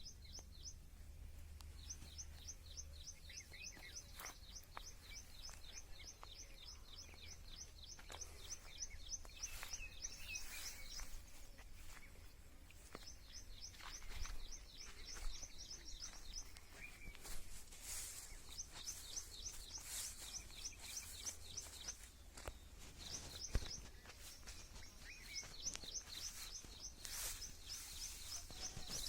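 A small bird calling in long runs of fast, high chirps, about six a second, that stop and start again several times, over a low rumble of wind on the microphone and faint outdoor ambience.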